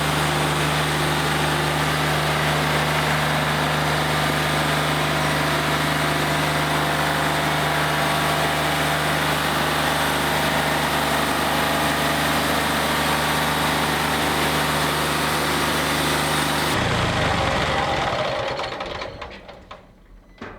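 Wood-Mizer LT40 Wide band sawmill running at a steady pitch, its engine hum with a hiss on top. About seventeen seconds in, the engine winds down and the sound dies away.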